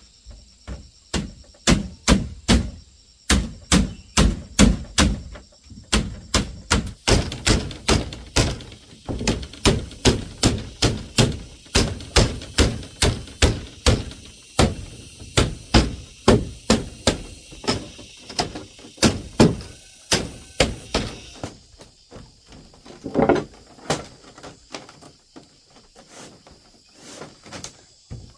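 Steady series of hard tool blows on bamboo, about two a second, thinning out after about twenty seconds.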